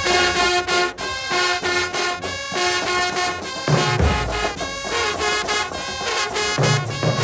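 Brass band music: horns playing sustained chords over a steady beat.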